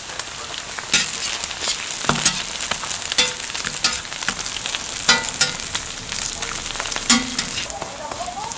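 Hamburger patties sizzling steadily on a flat-top steel griddle, with a few sharp metal clicks from a spatula tapping and scraping the griddle.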